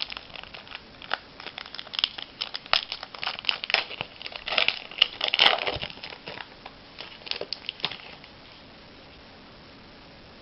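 Trading-card pack wrapper crinkling and rustling as packs are opened and cards handled; the crinkling stops about eight seconds in.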